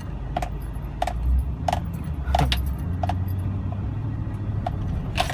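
Inside a car driving slowly over a bumpy grass field: a steady low rumble of the engine and tyres, with light rattling clicks from loose things in the cabin as it jolts.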